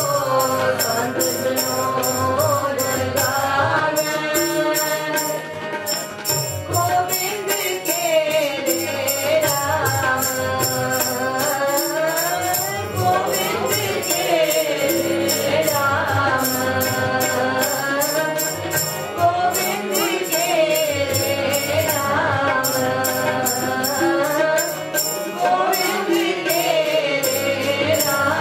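Sikh kirtan: a woman sings a hymn in long, bending phrases, accompanied by a harmonium and a tabla keeping a steady beat.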